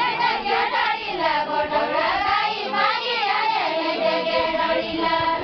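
A group of women singing a Deuda folk song together in high voices, gliding between notes and then holding long notes in the second half.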